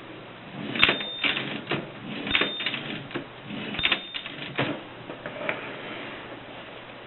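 Vintage Voss typewriter being typed on: sharp key clacks in three short bursts about a second and a half apart, then a few scattered strokes.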